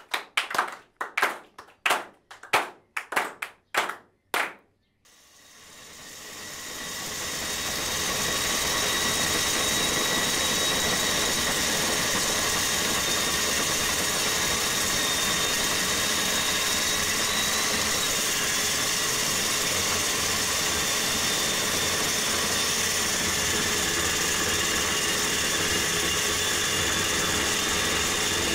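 A rapid series of about nine knocks, then an RT-160 handheld core drill running and cutting into a wall, its sound building up over a few seconds and then holding steady, with a dust-extraction vacuum drawing through the hose.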